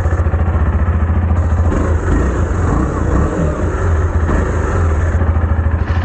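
KTM Duke motorcycle's single-cylinder engine idling steadily, with a low, even pulsing exhaust note.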